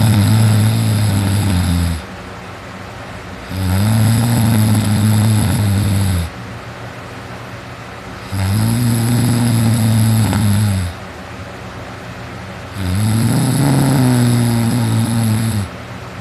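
Heavy snoring from a teenager sleeping on his back. The snores come in an even rhythm, about one every four and a half seconds. Each is a low buzz lasting about two and a half seconds, its pitch rising slightly and falling again, with quieter gaps of breathing between them.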